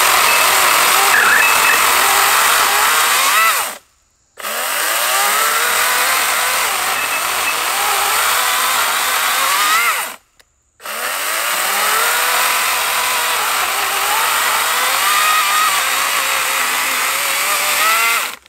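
Wild Badger Power 40-volt cordless electric chainsaw cutting through a log, its motor whine dipping and recovering as the chain works in the wood. The sound cuts off abruptly twice, about four and ten seconds in, then picks up again.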